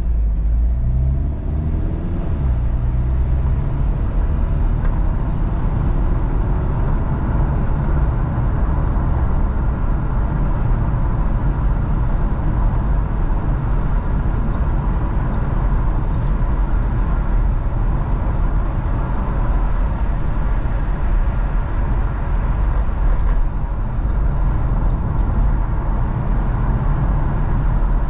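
Car on the move: a steady low rumble of engine and tyres on the road, with the engine's pitch rising in the first few seconds as it picks up speed.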